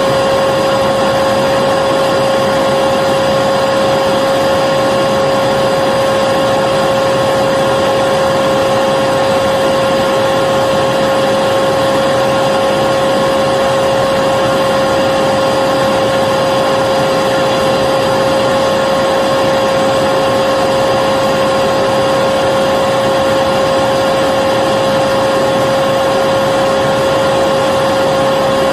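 Vacuum cleaner running continuously: a steady pitched whine over the rush of air, unchanging in pitch and loudness.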